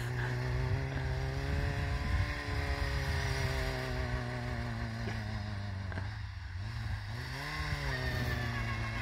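Suzuki Samurai's engine running under load as it drives through deep snow, its pitch rising over the first couple of seconds, easing off, then a short rise and fall near the end, over a steady low drone.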